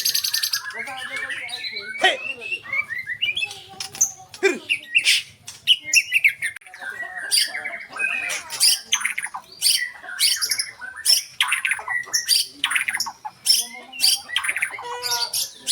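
White-rumped shama (murai batu) singing a fast, varied song of short chirps, whistled glides and harsh squawking notes, one after another without a break.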